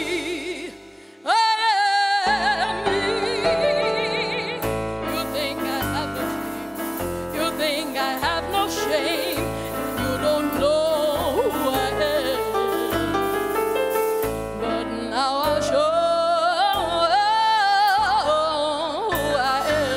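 A woman singing solo with a wavering vibrato, alone at first; instrumental accompaniment with a bass line comes in about two seconds in, and she keeps singing over it.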